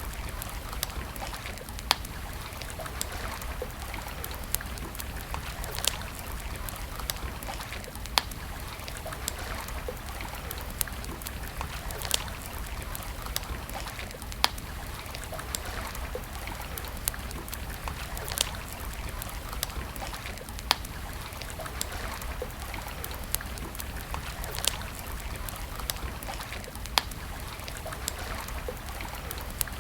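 Wood campfire crackling: a steady hiss broken by sharp pops every second or two.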